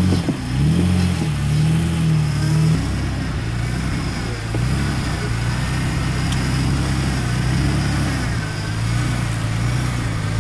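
Off-road vehicle engine revving up and down as it crawls over rocks, then running steadier at lower revs from about three seconds in.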